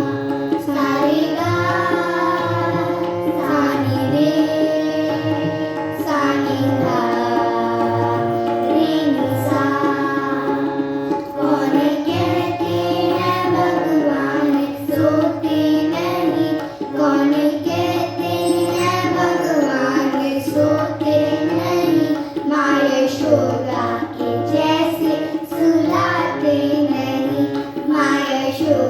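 Children singing a devotional song to Krishna in unison, with tabla and instrumental accompaniment. The melody moves through long held and gliding notes over a steady drum rhythm.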